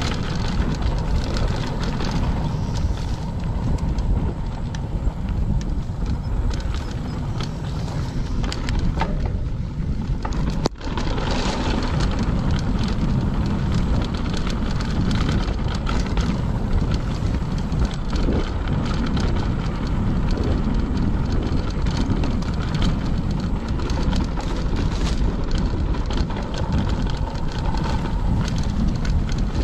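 Mountain bike rolling fast down a dry dirt trail: steady wind rush on the microphone over the tyres' rumble, with frequent small clicks and rattles from the bike and brush against it. The sound breaks off briefly about eleven seconds in.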